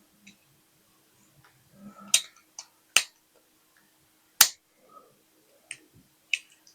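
About half a dozen sharp, irregular clicks and taps of small metal toy parts being handled and knocked against the bench while the base of a diecast Matchbox truck is worked loose, the loudest about three and four and a half seconds in.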